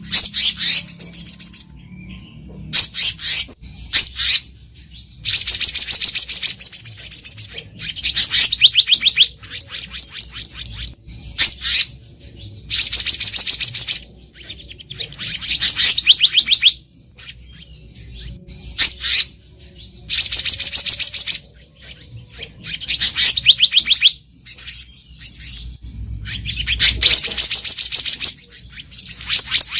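Black-naped monarch (kehicap ranting) calling: repeated runs of rapid, sharp, high-pitched notes, each run about a second long, with short pauses between runs.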